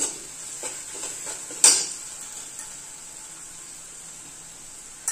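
Chopped onion frying in oil in an aluminium kadhai with a steady hiss, while a steel spatula stirs turmeric into it. The spatula scrapes and knocks against the pan a few times, loudest about a second and a half in.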